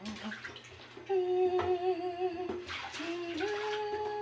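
A woman singing a slow hymn in long held notes over running water, with a few sharp clinks and splashes of dishes being washed.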